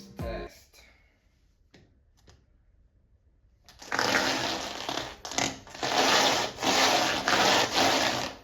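The new tire of a Funwheel X7 Long Range board spinning, a loud rushing whir that starts about four seconds in and swells and dips roughly once a second.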